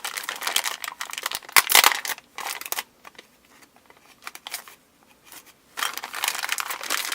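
Crinkling and rustling of plastic toy packaging being handled and opened, in two stretches with a quieter pause of about three seconds in the middle.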